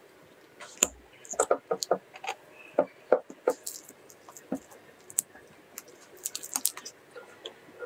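A spatula scooping mascarpone from a plastic tub, then a silicone spatula stirring and softening it in a glass bowl, making irregular small clicks and taps against the tub and the glass.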